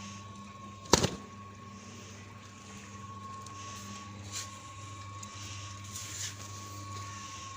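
Washing machine running: a steady motor hum with a thin, steady whine above it, and one sharp knock about a second in.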